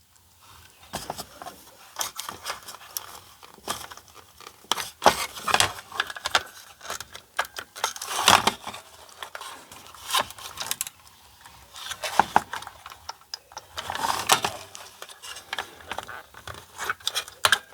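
Hands handling the small plastic motor-and-pump assembly of a blood pressure monitor and its wires: irregular clicks, taps and scraping rustles, with no motor running.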